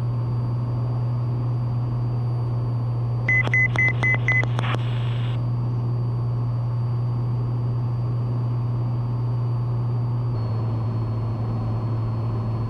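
Steady drone of a Cessna 182T's six-cylinder engine in the cabin, heard through the headset intercom. About three seconds in, a quick run of five short, high electronic beeps. Near ten seconds in, the drone's pitch steps down slightly.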